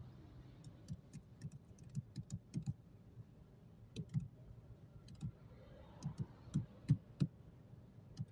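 Scattered, irregular light taps and soft knocks inside a car, over a faint steady low hum.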